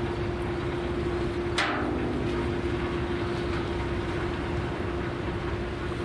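Steady low rumble with a constant hum, and one short sharp sound about a second and a half in.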